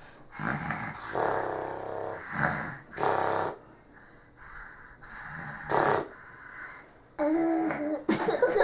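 A small child fake snoring: a long rattling snore breath, then a blown-out "shh", with a second shorter snore and "shh" later on. A voice-like sound follows near the end.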